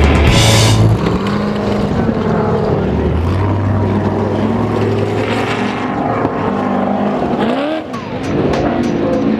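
Off-road race vehicle's engine running hard, its pitch rising and falling with the throttle; about eight seconds in it drops briefly, then revs quickly back up.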